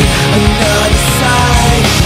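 Loud heavy rock music.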